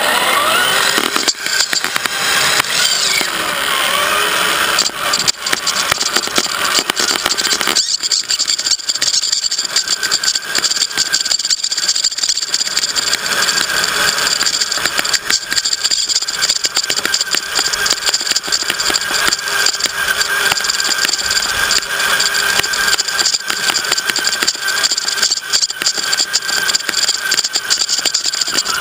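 Electric drive motor and gears of an HSP RC rock crawler whining steadily, heard from a GoPro mounted on the model, with the whine rising in pitch in the first couple of seconds as it speeds up. Frequent clicks and rattles from the chassis run through it.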